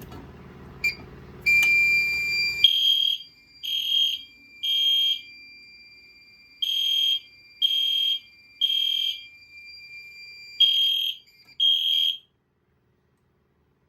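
EST Genesis fire alarm horn strobes sounding the temporal-three evacuation pattern for a fire drill: three horn blasts, a pause, three more, then two, before cutting off suddenly as the system goes to audible silence. A steady high electronic tone runs under the first two groups of blasts.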